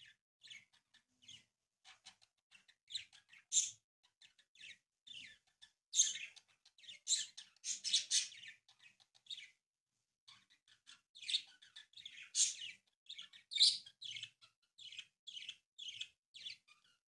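Folded origami paper rustling and crinkling in short, irregular crackles as hands pull open and rework the paper boat, with a brief pause about halfway through.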